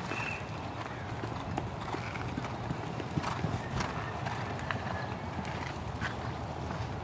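Hoofbeats of a horse cantering on dirt arena footing, taking a jump over a fence partway through.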